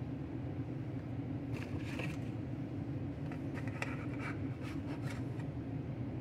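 Short scrapes and clicks of a metal spatula and a plastic clamshell takeout container as a slice of flan is slid into it. They start about a second and a half in and stop about five and a half seconds in, over a steady low hum.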